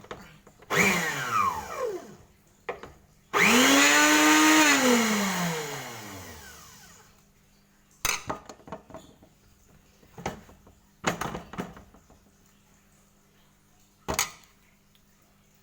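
A small electric motor whirs and winds down twice, falling in pitch each time. The second run starts abruptly, is louder, holds for about a second and then spins down over a few seconds. A few short knocks and clicks follow.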